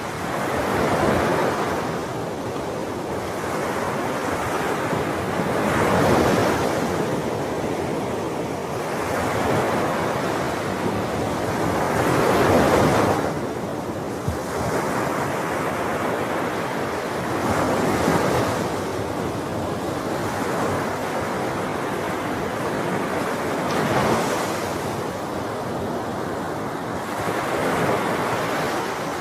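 Sea waves breaking in a slow, regular cycle: a swell of surf about every five to six seconds over a continuous wash.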